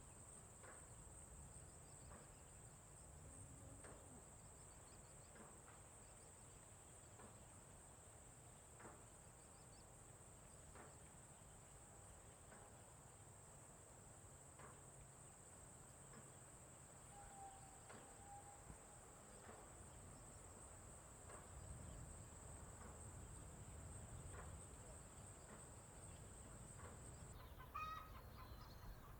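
Faint farm ambience: a steady high-pitched insect drone with scattered faint calls and a low rumble. The drone cuts off suddenly about two seconds before the end, and chickens start clucking.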